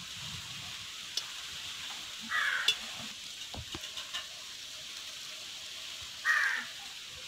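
Steady sizzling hiss from a large pot of biryani masala and water heating over a wood fire, with a few sharp crackles. Two short harsh calls cut in, about two seconds in and again near the end.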